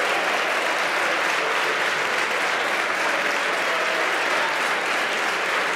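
An audience applauding: steady, even clapping that holds at one level.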